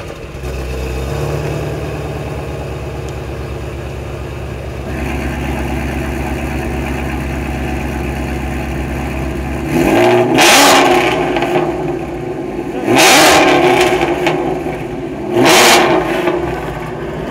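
Whipple-supercharged 5.2-litre flat-plane-crank V8 of a 2020 Ford Mustang GT350R idling just after starting, getting louder about five seconds in. It is then revved three times, a few seconds apart.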